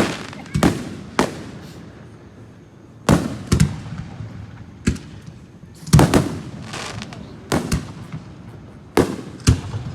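Firework show: about ten sharp bangs at irregular intervals, some in quick pairs, each trailing off in a rumbling echo, with a hissing burst at the very start.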